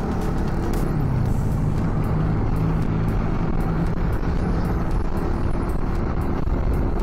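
Motorcycle engine running steadily while riding, a low hum under a constant rush of wind and road noise on the action camera's external mic.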